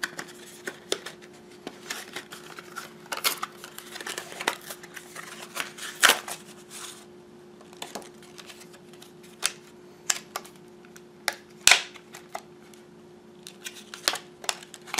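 Plastic-and-card retail package being pried apart and a small flash drive taken out and handled: irregular crinkles, snaps and clicks, the loudest about six seconds in and again near twelve seconds, over a faint steady hum.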